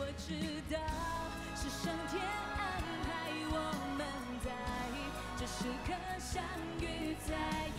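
Live pop-song performance: a singer with band accompaniment and a steady beat.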